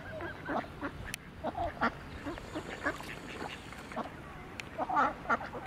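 Mallard ducks and greylag geese calling in a run of many short quacks, the loudest cluster about five seconds in.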